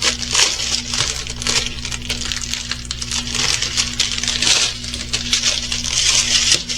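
Small plastic bags of diamond painting drills being handled: the plastic crinkles and the tiny drills rattle and click against each other.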